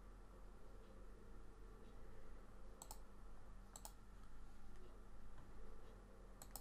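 Computer mouse clicking three times, each a quick pair of clicks, over a faint steady electrical hum.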